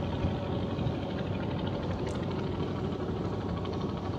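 Small river fishing boat's engine running steadily.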